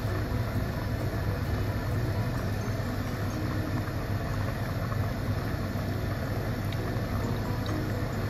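Steady low rumble and hiss from a gas stove with a pot of soup boiling on it.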